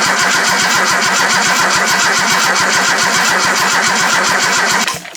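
Datsun 280Z's L28 straight-six being cranked over on the starter with its spark plugs in, an even beat of compression pulses about nine a second that cuts off suddenly near the end. It has a little gallop, from uneven compression of about 90 to 110 psi across the cylinders.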